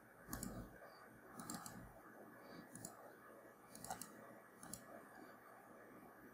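Faint computer mouse clicks, about six of them spaced roughly a second apart, over near silence.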